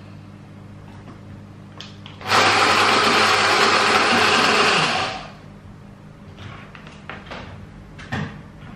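Stick blender motor on its mini chopper bowl, running in one even burst of about three seconds and then winding down, grinding a spice paste with candlenuts.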